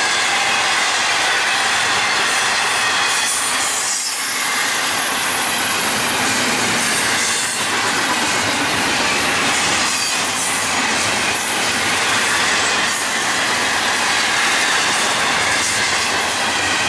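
Intermodal freight cars of a Florida East Coast train passing at speed: a steady, loud noise of steel wheels running on the rails, with a thin high wheel squeal through the first half and occasional clatter.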